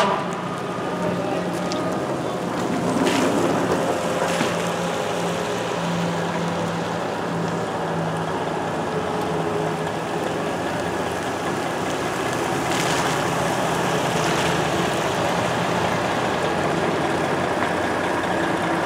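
Pickup trucks driving slowly past on wet pavement, engines running with a steady hum and tyre noise, and a fire engine coming closer near the end.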